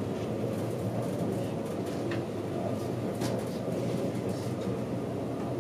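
Running noise inside a Deutsche Bahn Intercity passenger coach as the train pulls out of a station: a steady rumble, with a few sharp clicks about two and three seconds in.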